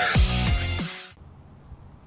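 Electronic dubstep-style music with heavy bass and falling pitch sweeps, cutting off about a second in, leaving only faint room noise.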